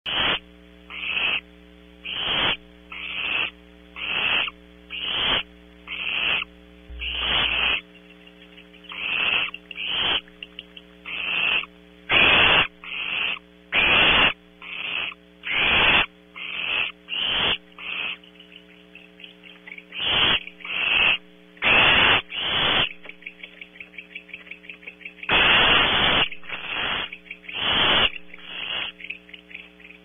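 Barn owl owlets in the nest cavity giving harsh rasping begging hisses, about one a second. Between the rasps, the adult barn owl's kleaking comes as rapid runs of short chittering notes, over a steady electrical hum.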